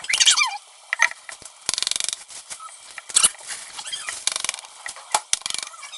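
Spoon scraping and clicking against a mixing bowl and a metal cookie sheet while cookie dough is scooped and portioned, in short irregular scrapes and taps, with a brief squeak right at the start.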